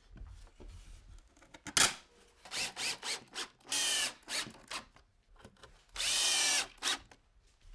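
Cordless drill driving screws into wood, in several short bursts of motor whine, the longest near the end. A sharp knock comes about two seconds in.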